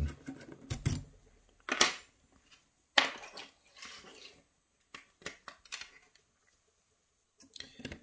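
Metallic clicks and knocks of a dimple key being drawn out of an Abus WavyLine Pro lock cylinder and of lockpicking tools being handled. The knocks are separate and sharp, the loudest about three seconds in, with a quiet spell shortly before new clicks near the end.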